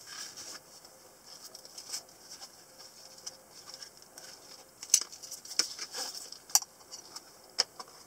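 Handling noise of a black nylon knife pouch being opened: fabric rustling and scraping with many small scattered clicks, and a few sharper, louder clicks in the second half as the knife comes out.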